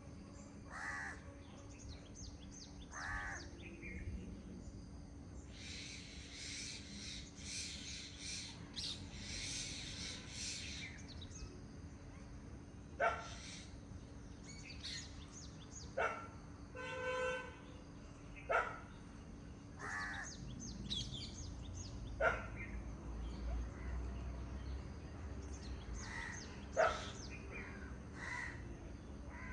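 Several wild birds calling and singing: a burst of dense, high twittering for about five seconds, then loud short calls every few seconds, one of them a drawn-out call with a rasping, layered tone.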